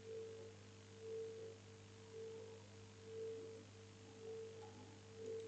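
Faint steady low hum with a higher steady tone that swells and fades about once a second.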